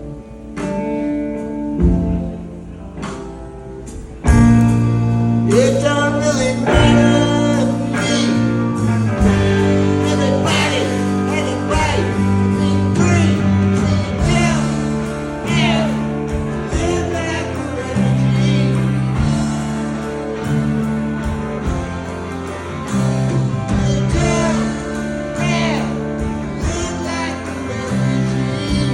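Live rock band playing a slow song arranged as a waltz. The first few seconds are sparse and quieter, then the full band comes in loudly about four seconds in, with guitar over it.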